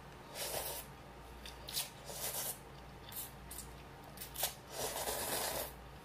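A person slurping ramyun noodles in a series of short, noisy slurps, the longest near the end.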